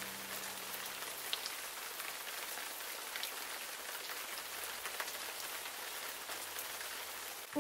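Steady rain, an even hiss with scattered faint ticks of drops.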